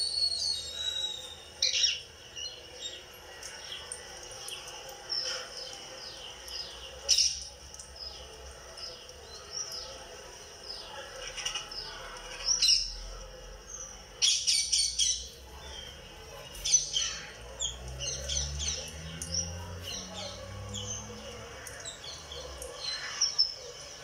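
Indian ringneck parakeet chirping and squeaking: many short, high chirps, mostly falling in pitch, in irregular runs with louder clusters now and then.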